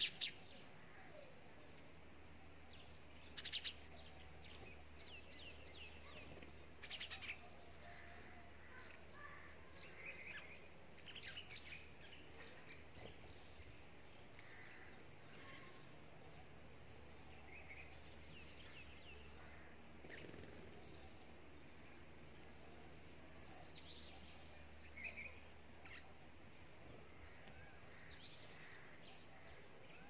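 Small birds, mostly sparrows, chirping and twittering in scattered short bursts over a faint low hum, with a few louder, sharper bursts in the first several seconds.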